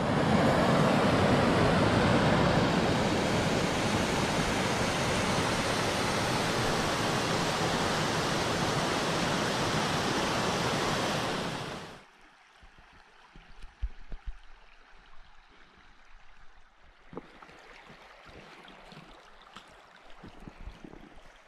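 Creek water rushing over rocks: a loud, steady rush that cuts off suddenly about twelve seconds in. After that it is much quieter, with scattered crunching footsteps on snow and stones.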